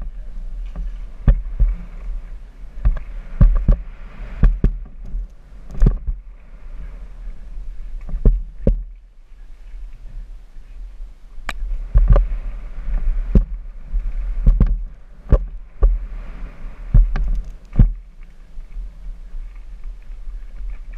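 Helmet-camera audio of a downhill mountain bike running down a rough dirt trail: wind rumbling on the microphone, with sharp knocks and clatter as the bike hits bumps and stones, many of them, roughly a second apart. The noise drops for a smoother stretch a little before halfway, then the knocks resume.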